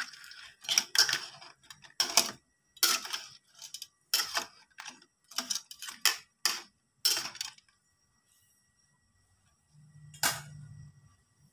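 Metal spatula scraping and knocking against a wok while stirring crab in sauce, a run of irregular strokes that stops about seven and a half seconds in. A single thump follows near the end.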